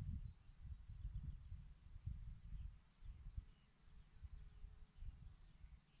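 Light wind buffeting the microphone in gusts, dying down over the few seconds, with a small bird in the background giving a short high chirp over and over, about every half second.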